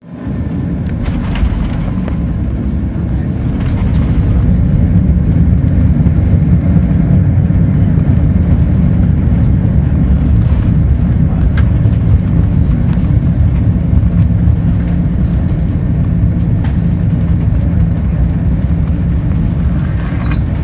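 Steady low rumble in the cabin of a Cathay Pacific Airbus A330-300 airliner during landing, growing louder about four seconds in, with a few faint clicks.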